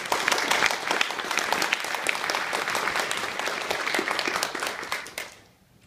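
Audience applauding: dense clapping that starts at once and dies away about five seconds in.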